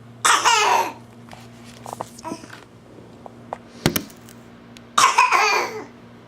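Two loud, drawn-out fake coughs from a person, one near the start and one about five seconds in, each lasting most of a second, with a few faint small sounds and a sharp click between them.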